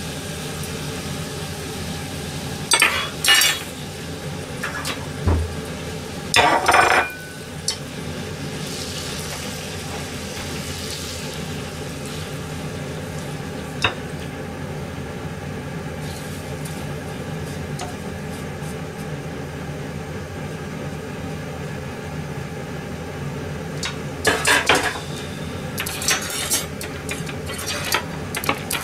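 Metal ladle and utensils knocking and scraping in an aluminium saucepan of miso soup as it is stirred, in several short clattering bursts, the loudest a few seconds in, over a steady hum.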